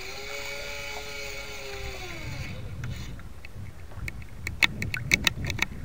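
Small electric servo whining steadily for about two and a half seconds, its pitch sagging as it stops: a model sailboat's sail winch trimming the sails during a change of tack. Near the end comes a quick run of sharp clicks, over a low rumble of water and wind on the boat-mounted microphone.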